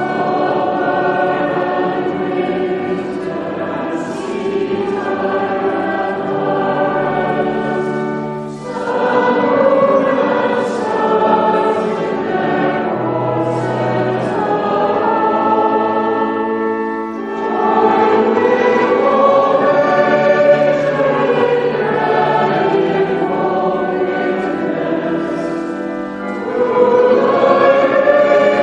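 Choir singing a hymn in long, held phrases, pausing briefly for breath about every eight to nine seconds.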